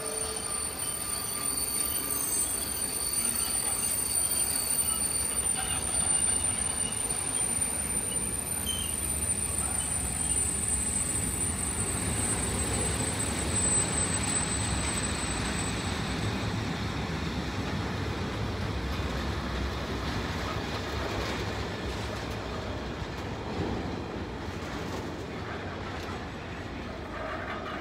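Freight train of tank wagons rolling steadily past on the rails, with a continuous wheel-and-rail rumble. A thin high-pitched wheel squeal rings over it and stops a little past halfway through.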